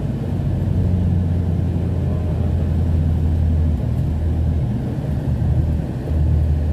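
Road rumble and engine hum heard inside a moving vehicle's cabin, steady and low, easing for a couple of seconds in the second half before coming back strongly.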